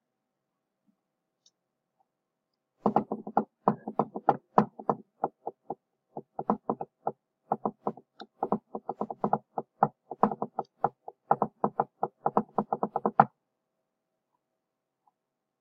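A rapid, uneven run of sharp clicks and taps, about four or five a second. It starts about three seconds in and stops a couple of seconds before the end.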